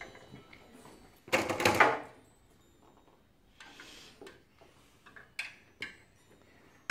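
A brief loud rushing noise a little over a second in, then quiet room sound with a few light knocks.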